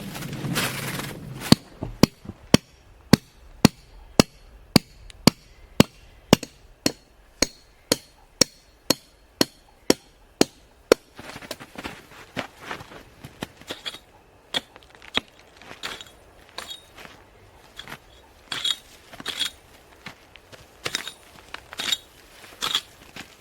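A tool striking hard and fast, about two or three blows a second in a steady rhythm, for roughly ten seconds. It then gives way to slower, irregular knocks and crunches.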